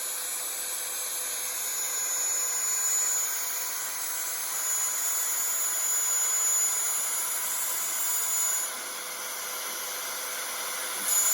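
Desktop CNC router spindle milling aluminium sheet with a 1/8-inch up-cut bit: a steady high whine over the hiss of cutting. It goes quieter about nine seconds in and picks up again near the end.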